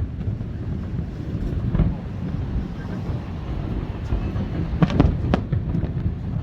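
Aerial fireworks shells bursting: one bang about two seconds in and a quick cluster of three bangs near the end, over a steady low rumble of wind on the microphone.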